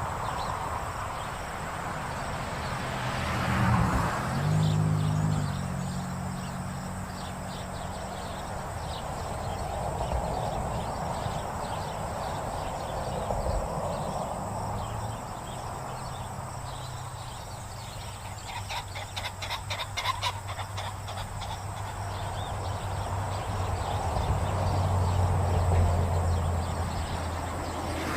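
Ocean surf at a beach: waves rolling in and washing out in slow swells, the largest about 4 s, 10 s and 26 s in. A low steady hum runs under the surf for much of the time, and there is a brief patter of rapid clicks a little past the middle.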